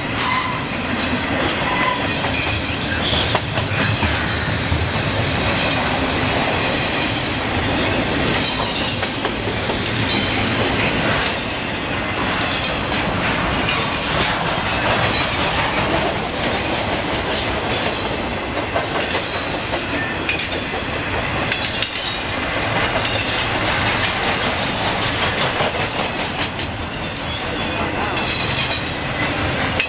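Double-stack intermodal freight train rolling past: the steady noise of steel wheels on rail, with a clickety-clack of wheels running over rail joints.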